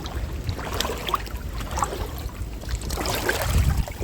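Shallow river water sloshing and trickling as someone wades through it, with a low rumble and small scattered clicks; the rumble swells near the end.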